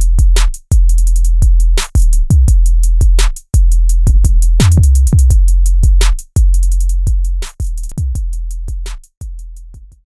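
Electronic dance music track with a drum-machine beat: heavy, deep kicks, some sliding down in pitch, under sharp percussive hits. After about seven seconds the beat grows quieter hit by hit and dies out just before the end.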